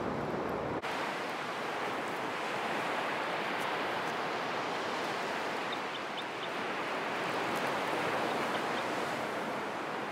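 Ocean surf washing onto a beach: a steady rush of breaking waves that swells a little about seven seconds in.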